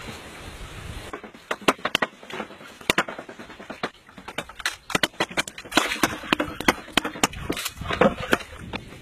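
Irregular sharp knocks and clacks of wood striking bamboo poles as a bamboo raft deck is pounded and fitted together, starting about a second in and coming at times two or three in quick succession.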